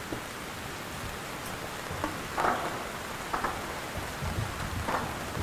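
Steady rain falling, with a few louder patters from about two seconds in.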